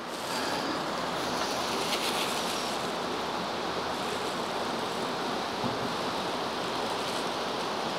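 Steady rushing of a stream, an even noise that comes up about half a second in and then holds level.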